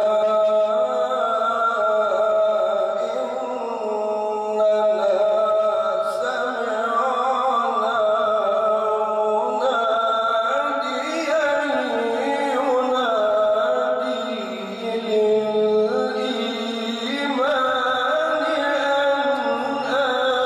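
A man reciting the Qur'an in melodic tilawat style into a handheld microphone: long, ornamented sung phrases with wavering pitch, broken only by a short breath a little past the middle.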